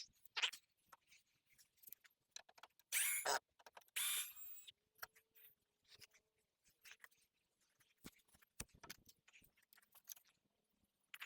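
A small power tool run in two short bursts about three and four seconds in, amid scattered light clicks and knocks of handling.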